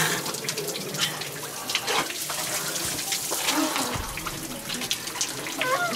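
Running water, a steady rushing hiss with scattered short knocks.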